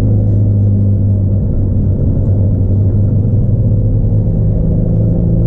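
Proton Wira 1.6 XLi's 4G92P 1.6-litre four-cylinder engine running at steady revs while the car is driven, with road noise underneath.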